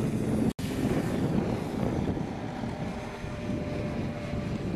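Electric radio-control model airplane in flight, its motor and propeller running steadily, with a faint steady whine coming in during the second half. The sound cuts out for an instant about half a second in.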